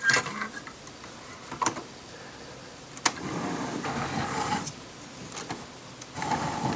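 Plastic LEGO parts being handled: a few sharp clicks and stretches of scraping and rustling as the built model is moved about.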